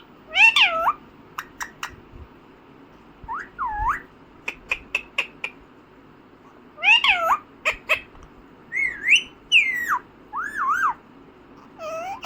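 Indian ringneck parakeet calling: short whistled calls that sweep up and down in pitch, in bursts, with runs of sharp clicks in between.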